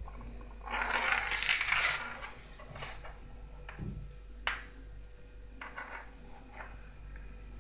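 A walnut in its shell skittering and rattling across a ceramic tile floor as a kitten bats it with its paws: a long scraping clatter about a second in, then a few sharp single taps.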